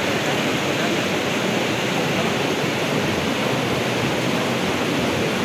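Rushing stream tumbling over boulders, a steady, unbroken rush of white water.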